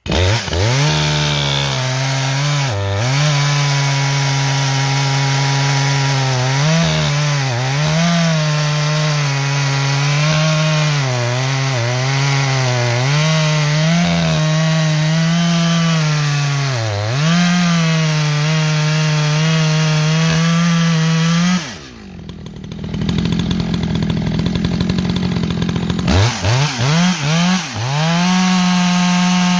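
Echo CS-620PW two-stroke chainsaw running at full throttle, cutting into the base of a white oak trunk, its pitch dipping again and again as the chain loads in the wood. About 22 seconds in it drops to idle for a few seconds, then revs back up and cuts again.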